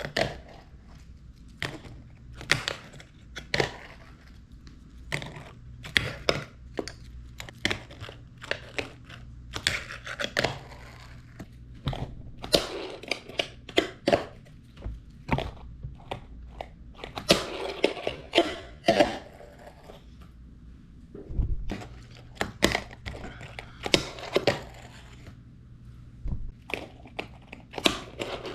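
Fingerboard popping and landing on a notebook: irregular soft taps and clacks of the board's tail and wheels, coming in loose clusters with short pauses, over a faint steady low hum.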